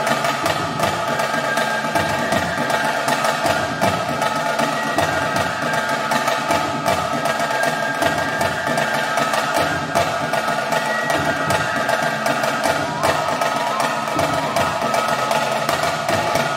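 Kangilu folk-dance music: fast, even drumming on barrel drums with cymbal strokes, under held flute notes.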